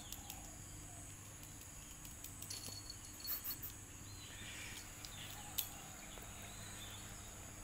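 Faint outdoor ambience: a steady high insect drone with a few short bird chirps, a low hum underneath, and a few soft clicks and scuffs.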